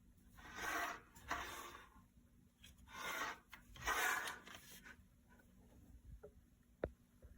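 Four short scraping noises in the first five seconds, then a single sharp click near the end.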